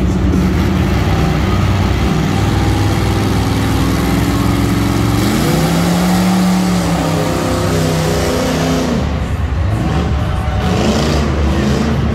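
Monster truck engine running loud and revving, its pitch climbing about five seconds in, holding, then dropping back a few seconds later.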